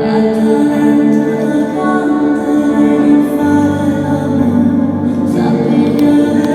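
Live ambient music of slow, sustained, drone-like tones; a new low note comes in about halfway through.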